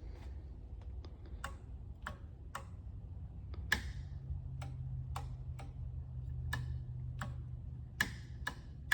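Wall light switches clicking as they are flipped one after another, about two clicks a second, testing a 4-way switching circuit. A low steady hum comes in about four seconds in.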